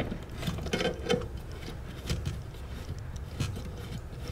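A dishwasher's threaded leveling leg being turned in its metal frame, first with tongue-and-groove pliers and then spun by hand, giving light irregular clicks and ticks.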